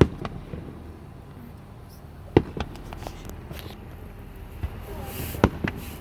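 Fireworks shells bursting: three sharp bangs about two and a half to three seconds apart, with smaller pops and crackle between them.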